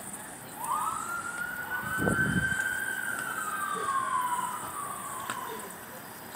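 Emergency vehicle siren sounding one slow wail: it rises about half a second in, holds high, then falls away over the next few seconds. A brief low rumble comes about two seconds in.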